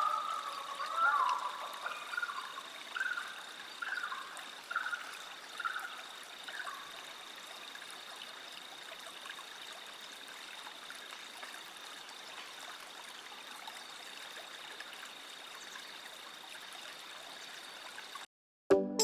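Steady trickling water with a faint steady high tone. During the first seven seconds there is a run of short chirping calls, about one a second, that grow fainter. The sound cuts off near the end and music starts.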